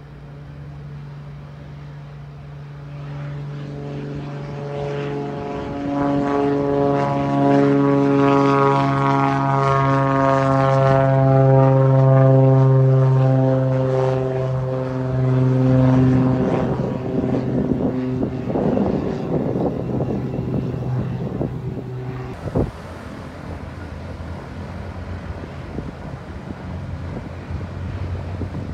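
Cessna 182 single-engine propeller plane at takeoff power, a steady buzzing drone of piston engine and propeller that swells as it climbs past close by and then fades. It cuts off abruptly about two-thirds of the way through, leaving a fainter low drone of another plane's engine.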